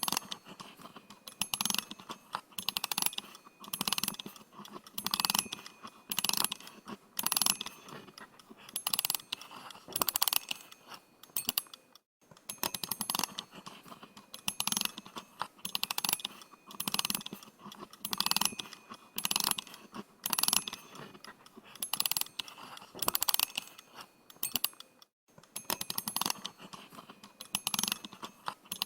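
Analog watch being wound by its crown: the mainspring ratchet clicks in quick runs, one short burst of fine clicking about every three-quarters of a second, with two brief pauses.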